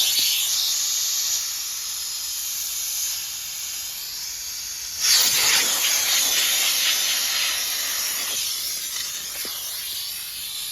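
Pressurized gas hissing out steadily, with a second strong surge of hiss about five seconds in that then slowly eases off.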